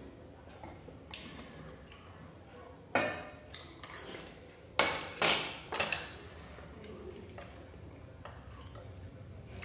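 Porcelain soup bowl and chopsticks clinking against dishes on a table: one sharp knock, then a quick cluster of three or four louder clinks about halfway through, between quieter sipping and eating sounds.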